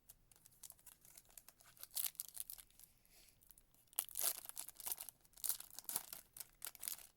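Foil trading-card pack wrapper being handled and torn, making irregular crinkling and tearing crackles that are loudest about four seconds in.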